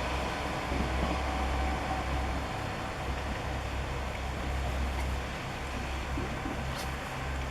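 Train running with a steady low rumble.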